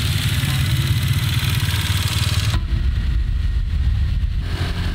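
Small motorbike engine running, with a heavy low rumble. About halfway through the sound changes suddenly and the upper hiss drops away.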